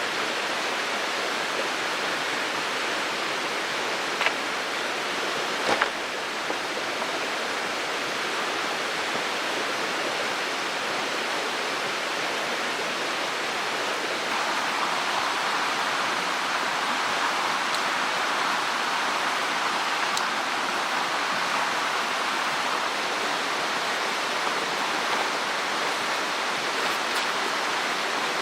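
Mountain stream water rushing steadily, growing a little fuller about halfway through, with a couple of brief knocks early on.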